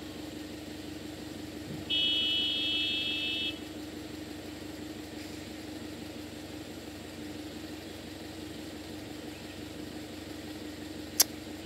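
A vehicle idling steadily while stopped, with a loud, high, steady beep or horn tone lasting about a second and a half, starting about two seconds in. A single sharp click comes near the end.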